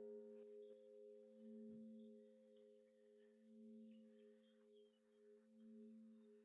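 Faint lingering hum of a struck bell dying away: a few steady low tones that swell and fade in slow pulses about every two seconds.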